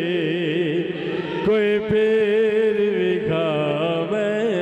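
A man's voice chanting long melodic phrases with a wavering, ornamented pitch: a sung devotional refrain. A steady low tone is held underneath, and a new phrase begins about a second and a half in.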